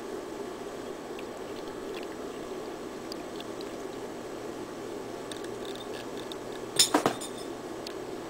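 A drinking glass clinks sharply three times in quick succession about seven seconds in, as it is set down or knocked against something hard. Under it runs a steady low background noise.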